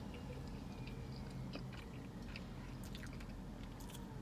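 A person chewing a burger close to the microphone, with soft scattered mouth clicks and smacks over a steady low hum.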